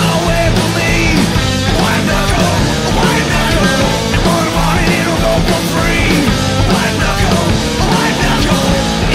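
Loud rock music with a singing voice, running steadily throughout.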